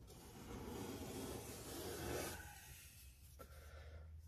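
Knife scraping and spreading ready-made joint compound across a road form. Strongest up to about two and a half seconds in, then fainter.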